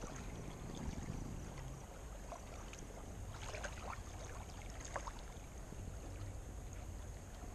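Faint water lapping at the shoreline over a low steady rumble, with a few light scattered ticks.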